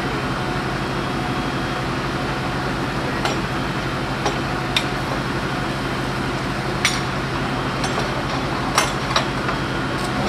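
A steady engine running, with a handful of short, sharp clicks and clinks scattered over it.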